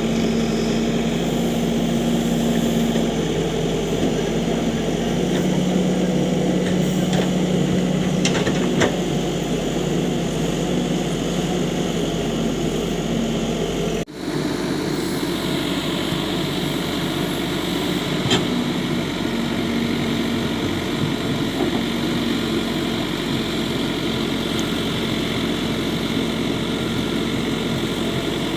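Heavy diesel engine of working farm or construction machinery running steadily, its pitch shifting a little now and then. The sound breaks off for an instant about halfway, then carries on.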